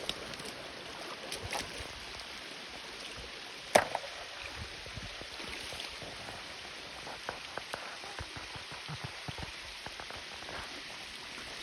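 Steady rushing of water from a waterfall stream, with one sharp knock about four seconds in and a few light clicks later on.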